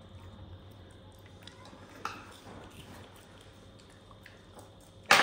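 Faint scattered clicks and mouth sounds of a baby monkey eating rice, then near the end a single loud, sharp clink of tableware that rings briefly.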